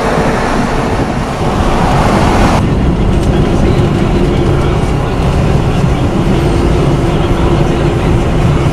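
Road and wind noise inside a moving car: a loud, steady low rumble with a hiss over it. The hiss drops off sharply about two and a half seconds in, leaving mostly the rumble.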